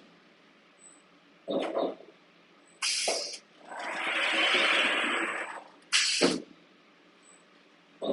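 CNC turret punch press running: separate bursts of air hiss with abrupt starts and stops, and one longer hiss in the middle that swells and fades, with quiet gaps between them.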